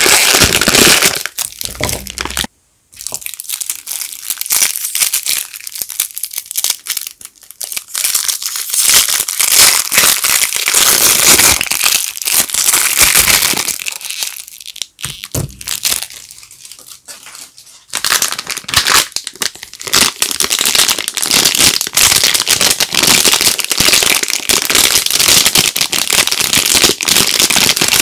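Soap wrappers crinkling and tearing as bars of soap are unwrapped by hand: dense, loud crackling, with a brief break about three seconds in and a quieter stretch a little past halfway.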